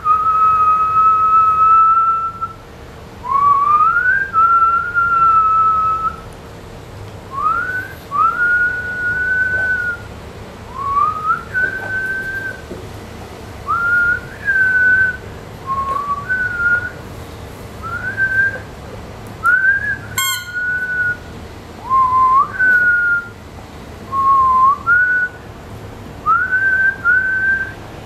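Squeaky rubber pig toy squeaking again and again as a toy poodle puppy bites and chews it. Each squeak is a quick rising note that levels off into a held whistle-like tone, some lasting about two seconds. A single sharp click comes about two-thirds of the way through.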